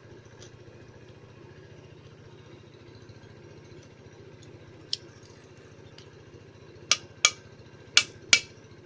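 Sharp metallic clicks, a single one about five seconds in and then four loud ones in quick succession near the end, over a steady low mechanical hum.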